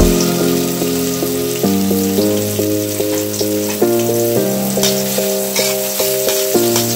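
Chopped onions sizzling in hot oil in a wok, with a metal spoon starting to stir them near the end. A tune with steady, stepping notes plays over it.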